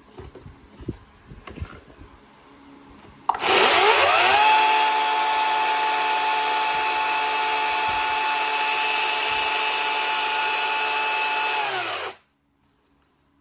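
Echo DCS-5000 eFORCE 56V cordless chainsaw with a 46 cm bar: its electric motor spins up about three seconds in with a rising whine and runs the chain free at a steady high speed, then winds down quickly with a falling pitch near the end. A few light handling knocks and clicks come before it starts.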